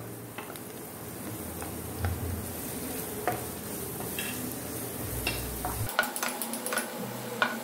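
Wooden spatula stirring chopped onions and ginger-garlic paste in a nonstick frying pan, the onions sizzling in the oil, with scattered light scrapes and taps of the spatula on the pan.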